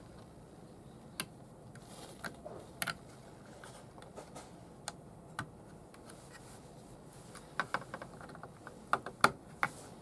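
Irregular light clicks and taps of small hard parts being handled, with a quicker run of sharper clicks near the end.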